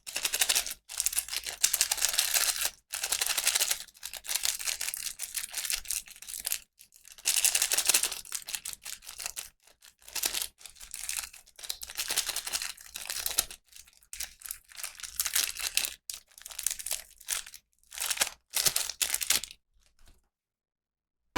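Packaging being handled and torn open, in irregular crinkling and tearing bursts with short pauses between them; it stops about a second before the end.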